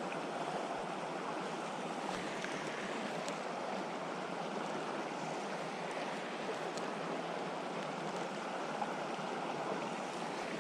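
A small mountain creek running steadily, a continuous rush of flowing water.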